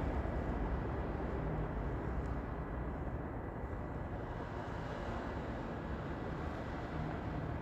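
Steady low rumbling background noise with a faint, constant high-pitched tone.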